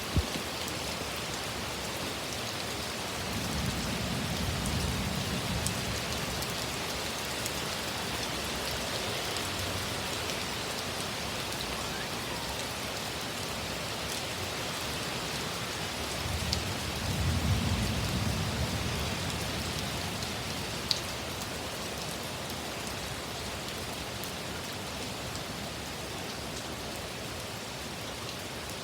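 Heavy rain pouring steadily in a severe thunderstorm, with two low rumbles swelling and fading, about four and seventeen seconds in.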